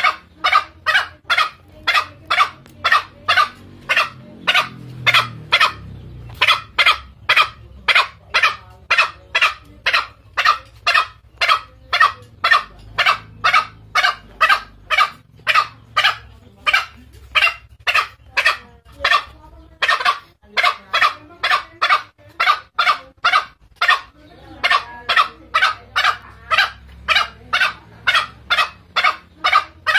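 Green junglefowl calling: short, sharp clucking notes repeated about two to three times a second almost without a break. It is a lure call meant to draw territorial males in to fight.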